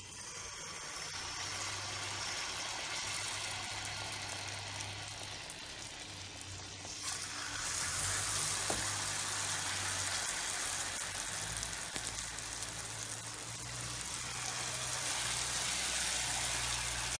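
Batter-coated banana slices sizzling as they deep-fry in hot oil in a pan. The sizzle starts as the first slice goes in and grows louder about seven seconds in as more slices are added.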